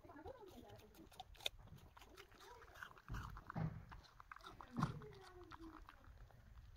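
Manchester Terrier making short whining and grunting sounds at a piece of apple it is playing with, each sound gliding up and down in pitch. The loudest comes a little under five seconds in.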